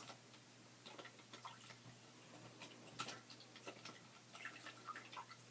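Faint, scattered clicks and taps of a small plastic action figure being handled.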